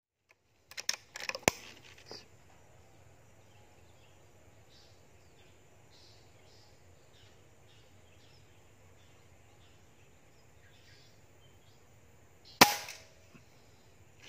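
A few sharp clicks about a second in, then a single sharp crack of a PCP air rifle firing near the end.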